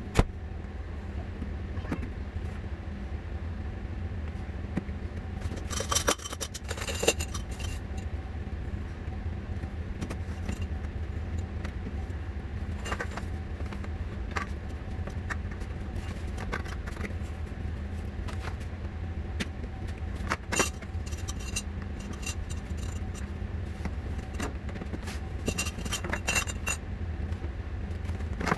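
Hard plastic shoe-rack parts clicking and clattering as they are handled, in a few short bursts, over a steady low hum.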